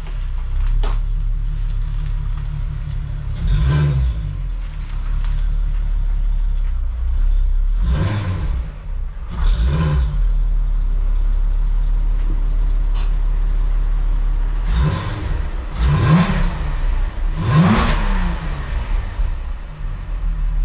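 Volkswagen Jetta wagon's VR6 engine running as the car is reversed into a garage, a steady low idle broken by several short throttle blips whose pitch rises and falls.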